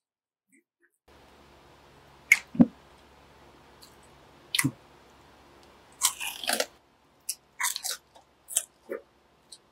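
A man biting into and chewing crispy fried pork by hand, close to the microphone: separate short crunches and mouth sounds, a few at first and then several in quick succession in the second half.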